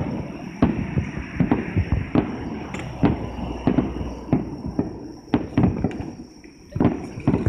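Aerial fireworks shells bursting: an irregular string of bangs, roughly two a second, each with a short rumble after it.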